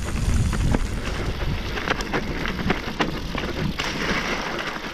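Mountain bike riding fast down a leaf-covered dirt and mud trail: tyres running over dry leaves and soil while the bike rattles with many short clicks and knocks over bumps. Wind rumbles on the microphone, heaviest in the first second.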